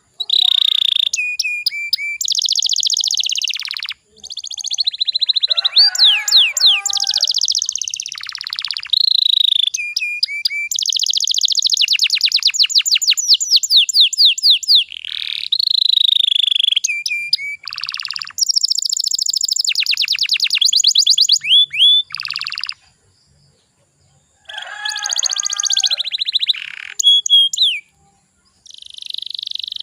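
Canary singing: long phrases of fast rolling trills and rapidly repeated high notes, with a short break about two-thirds of the way through.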